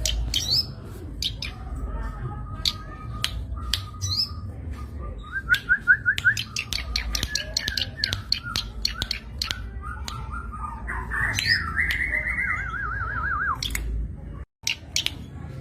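Zitting cisticola (cici padi) calling: a busy run of sharp ticks mixed with short whistles and fast, wavering trills. The sound cuts out for a moment about fourteen and a half seconds in.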